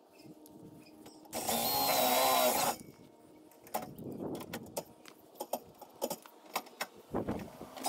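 A cordless power tool runs for about a second and a half with a high whine, plausibly deburring freshly drilled holes in the fender sheet metal, then stops abruptly. Scattered metallic clicks and clanks of tool handling follow.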